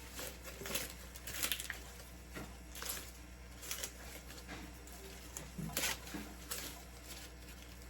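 Harvested corn ears and husks being handled: a string of short, irregular rustles and crackles.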